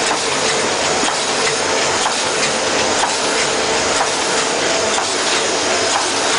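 Envelope making machine (Model 820) running: a loud, steady mechanical clatter made of rapid, even clicks.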